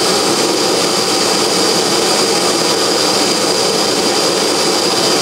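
Gas Bunsen burner running at full gas, a steady roaring flame, while annealing the neck and shoulder of a brass rifle cartridge case.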